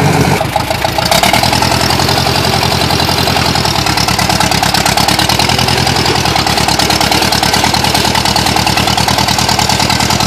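Old farm tractor's engine running hard with a rapid, even firing beat, picking up about a second in as the driver tries to power the tractor out of deep mud.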